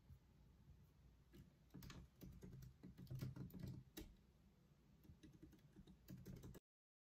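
Faint typing on a tablet's keyboard case: a run of soft key clicks, quickest in the middle. It then thins out and cuts off abruptly shortly before the end.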